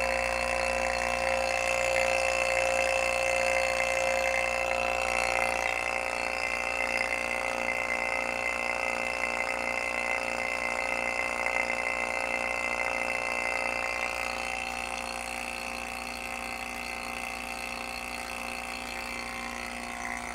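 J/B two-stage rotary-vane vacuum pump running steadily, a constant motor hum with a few steady whining tones, while pulling a deep vacuum of about 15 microns. It grows slightly quieter over the last several seconds.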